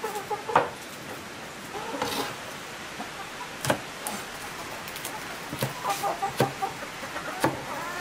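Chickens clucking now and then, among scattered sharp taps and clicks.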